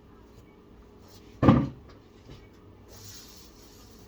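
A single sharp thump about a second and a half in: a PC case's back panel knocking into place on the chassis.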